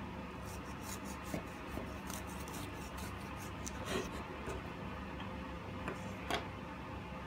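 Serrated bread knife sawing through a loaf of banana bread: a quick run of short scraping strokes across the crust, followed by two soft knocks, one about four seconds in and one near the end.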